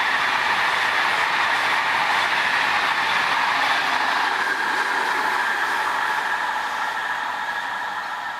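Pendolino (ED250) electric high-speed train passing at speed: a steady rushing of wheels on rail, fading away over the last two seconds as the train recedes.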